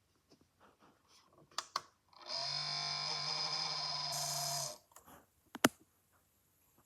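A desktop computer making a grinding noise for about two and a half seconds, steady and dense, the fault the owner keeps hearing from the PC. A few light clicks come before it and one sharp click after it.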